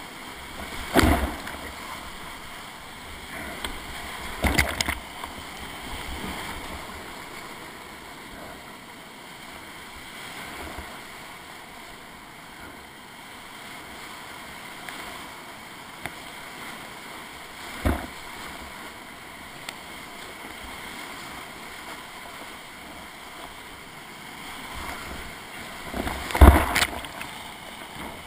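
Whitewater rapids rushing steadily around a creek kayak as it runs the rapid. Sudden loud splashes break in about four times as the water and paddle strike, the loudest near the end.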